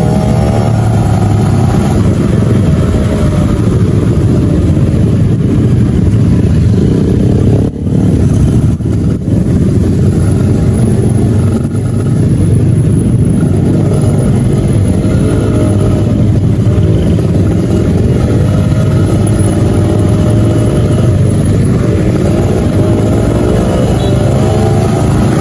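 Yamaha motorcycle engine running through an HTX aftermarket exhaust at low speed. The revs climb and ease with the throttle, with rising sweeps near the start and near the end and a brief drop about eight seconds in.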